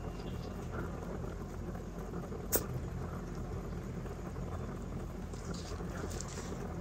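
Two rabbits chewing hay and green stalks close to the microphone: soft crunching and rustling over a steady low hum, with one sharp click about two and a half seconds in.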